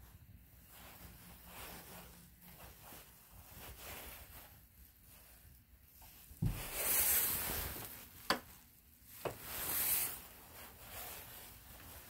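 Phone handling rustle, then a wooden door being worked: a low thump, a rushing swish, two sharp clicks about a second apart, and a second swish.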